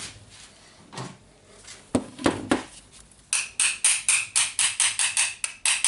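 Hammer knocking on a jigsaw motor to drive its back end out of the housing: a few separate knocks, then a quick run of metallic taps, about five or six a second, with a ringing tone.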